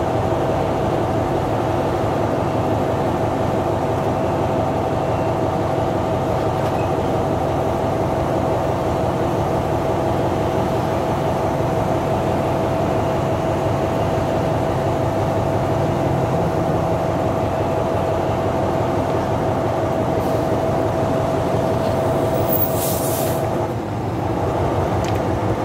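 Diesel locomotive and passenger train running close by, a steady low rumble with a strong steady whine over it. A brief hiss of air comes near the end, and the whine stops just after it.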